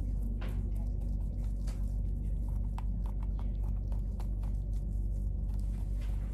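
Scalpel cutting and pulling a fox squirrel's skin away from the carcass: scattered small wet clicks and ticks, thickest in the middle, over a steady low hum.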